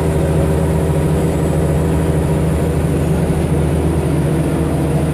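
Scania L94UB bus's diesel engine idling steadily, heard from inside the passenger saloon.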